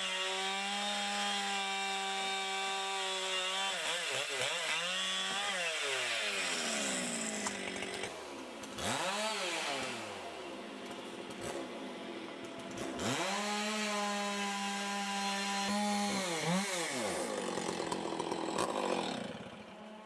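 Chainsaw engine held at high speed, then the throttle is let off and blipped several times, with the pitch sweeping down and back up. It returns to a steady high-speed run and then drops away near the end.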